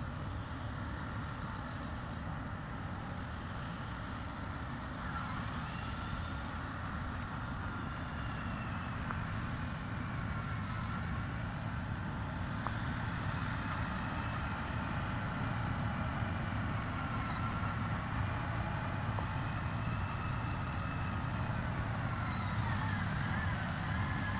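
Heavy construction machinery running steadily with a low engine rumble, growing slightly louder, with faint high whines that rise and fall over it.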